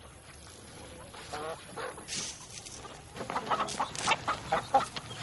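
Chickens clucking: a few scattered calls at first, then many short calls in quick succession from about three seconds in.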